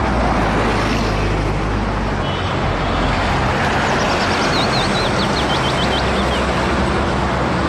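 Street traffic noise dominated by the steady low rumble of a double-decker city bus's engine as it drives past close by. A run of quick high chirps comes through about halfway in.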